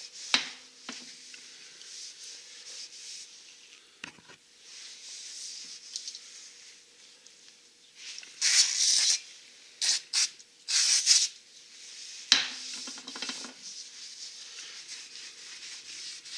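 Aerosol brake cleaner sprayed in four short hisses, the first about a second long, onto a new disc brake rotor's braking surface to strip its protective oil film. Quiet rubbing and wiping around the sprays, and two sharp metal clinks, one near the start and one just after the sprays.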